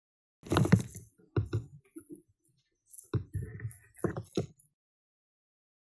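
A sick tarantula stridulating defensively: a series of short, irregularly spaced bursts of sound over about four seconds, in about six groups.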